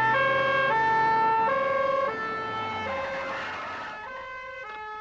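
Two-tone emergency-vehicle siren, alternating between a high and a low note about every 0.7 seconds. It is loudest for the first two seconds, then somewhat quieter, with a brief rush of hissing noise about three seconds in.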